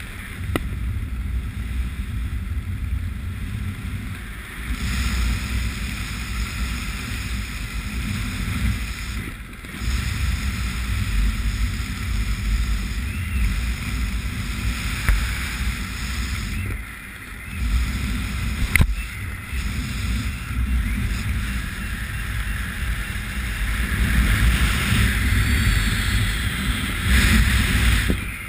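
Wind buffeting a skydiver's camera microphone during a wingsuit jump descent: a steady low rumble, with a few sharp clicks.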